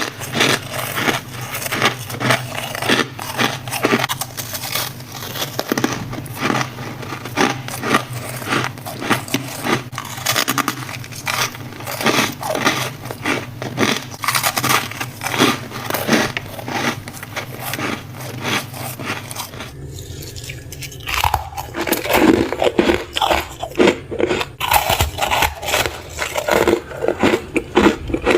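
Ice being bitten and chewed: a dense run of crisp crunches with a short break about twenty seconds in, then more chewing.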